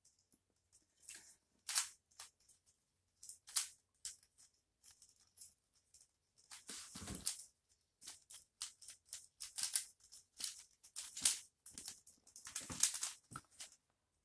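Plastic 3x3 twist cube being turned quickly by hand in a timed solve: faint, irregular clicking and clacking as the layers turn, sometimes in quick runs of several turns.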